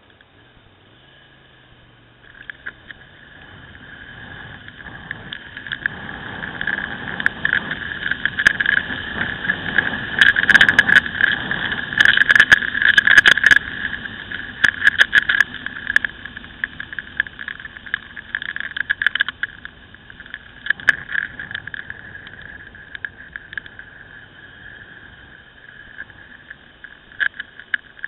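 Wind and road noise on a camera riding on a moving Ducati Scrambler motorcycle, with crackling gusts against the microphone. It builds up about two seconds in, is loudest around the middle and eases off later, with the engine faint underneath.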